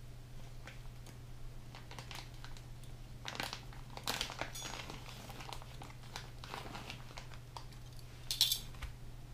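Plastic deli-meat packaging crinkling and rustling, with light clicks of metal tongs, as turkey slices are pulled out; a sharper, louder crinkle comes near the end.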